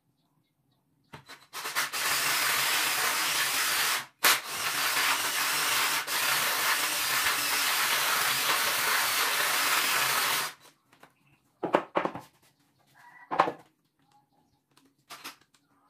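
Cordless drill with a spade bit boring through a wooden board: a loud, steady cutting noise for about nine seconds with one short break partway through, then a few brief bursts near the end.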